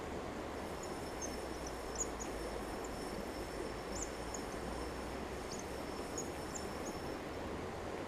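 Steady outdoor background noise by a river, with faint short high chirps scattered through and a thin, steady high whine for most of it.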